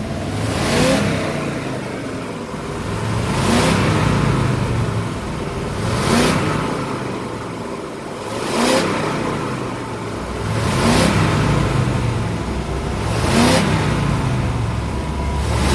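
1968 Chevrolet Impala convertible's engine and exhaust, blipped with the accelerator pedal six times about every two and a half seconds, each rev rising and dropping back to idle.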